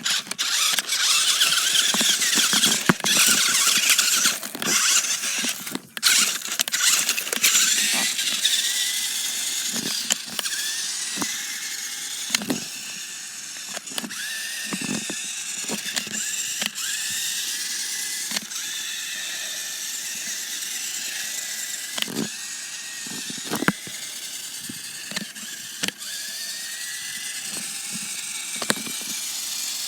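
RC car driving on ice, its motor whining and rising and falling in pitch in repeated short arcs as it speeds up and slows, with scattered knocks and clatter. The first several seconds are louder and rougher.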